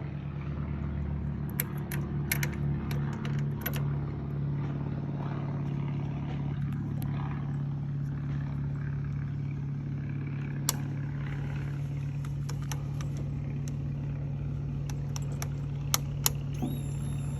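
The inline-four engine of a 2002 Suzuki GSX-R 750 running steadily, with scattered sharp metallic clicks, two of them loud near the end. The owner calls it a metal screeching noise and asks whether the cause is dry pistons or bad cams.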